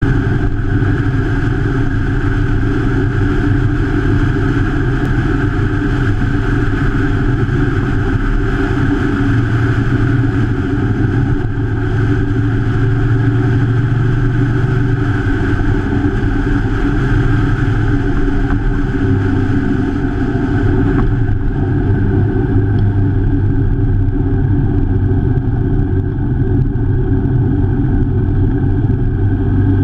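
Motorcycle engine running steadily at road speed, heard from a camera mounted on the bike, with steady road noise.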